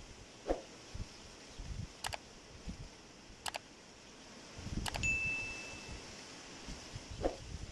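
Three light metallic clinks, evenly spaced, then a short clear ringing ding that dies away after about a second, with soft low knocks throughout.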